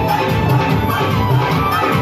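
Loud upbeat music with a steady beat and a wavering melody line.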